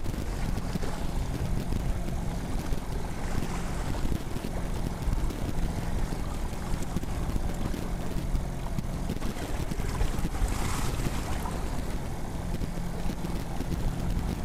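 Fishing boat's engine running steadily, under wind on the microphone and the wash of choppy water, with a brief louder rush of wind or spray about ten seconds in.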